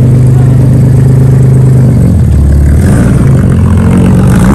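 Datsun 280Z engine running loud through a straight-piped exhaust with a small welded-in resonator. It holds a steady note that turns deeper about two seconds in, then falls briefly in pitch near the end.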